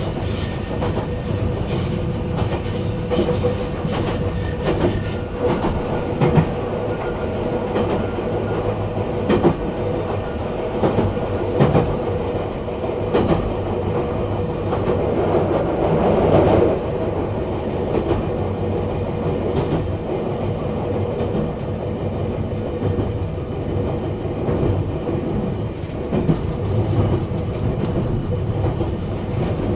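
Nagano Electric Railway 1000 series 'Yukemuri' electric train running along the line, heard from inside at the front: a steady running rumble with a held motor tone, and wheels knocking over rail joints every few seconds. The rumble swells louder about halfway through.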